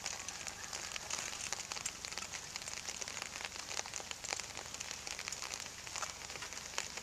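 Steady light rain falling near the microphone, a dense hiss of many fine drop ticks.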